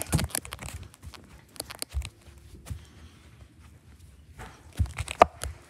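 Handling noise of a phone held in the hand: fingers rubbing and shifting over the body and microphone, making irregular rustles and bumps. A sharp click comes about five seconds in.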